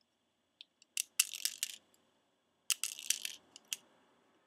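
Airsoft BBs being pushed by hand into an Uzi airsoft magazine: two short runs of light clicks and rattles, about a second in and about three seconds in.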